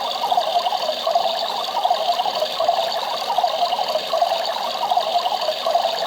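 Battery-powered toy washing machine running: its small motor whirring steadily while water churns in the little drum, swelling and fading in a regular rhythm.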